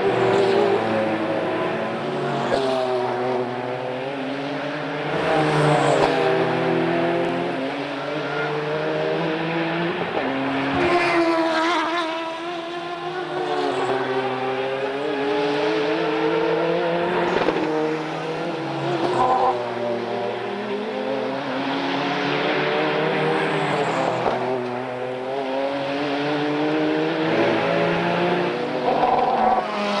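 Group C prototype race cars passing one after another through a corner at racing speed. Each engine note falls in pitch as the car brakes, then climbs as it accelerates away, with several cars sounding over one another and a fresh pass every few seconds.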